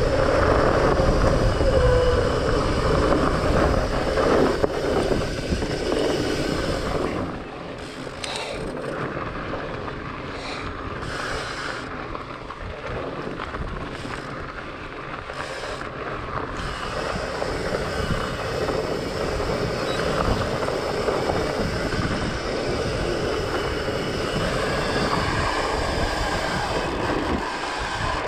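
Wind noise on an action camera's microphone over the rumble and rattle of a fatbike riding a gravel and dirt forest trail. Louder for about the first seven seconds, softer through the middle, then louder again.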